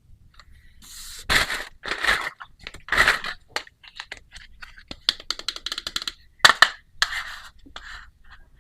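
Small plastic toy pieces and their packaging being handled: crinkling and scraping in short bursts, a quick run of light clicks about halfway through, and a couple of sharper clacks soon after.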